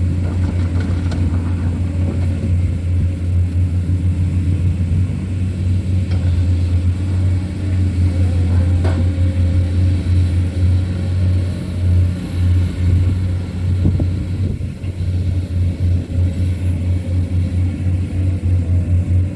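Komatsu PC200 excavator's diesel engine running steadily with a strong low hum, its level swelling and dipping as the hydraulic load changes while it digs and loads soil. A couple of faint knocks come through about midway.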